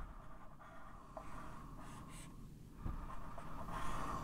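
Dry-erase marker drawing lines on a whiteboard: faint strokes of the marker tip on the board, louder near the end.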